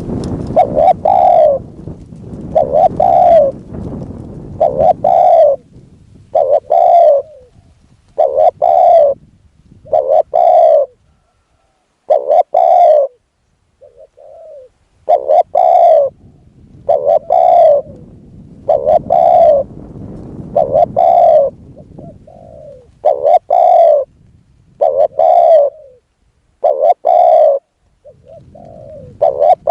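Spotted doves cooing over and over, a phrase about every two seconds, with a low rumbling noise under the first few seconds.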